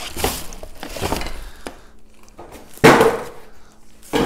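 Plastic wrapping rustling and cardboard packaging scraping as a boxed coffee grinder is pulled free, with a loud knock about three seconds in as it is set down on the stone countertop.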